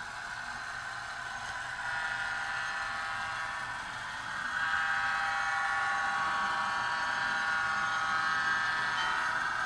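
Sound-equipped model diesel locomotive: its DCC sound decoder plays engine sound through a tiny speaker that gives a thin, steady hum with no bass. It gets louder about two seconds in and again about four and a half seconds in.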